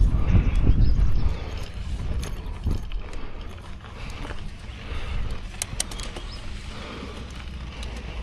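Bicycle rolling over a gravel road: tyres crunching and bike parts rattling, with scattered sharp ticks. A heavy low rumble, likely wind on the microphone, is loudest for about the first second, then drops.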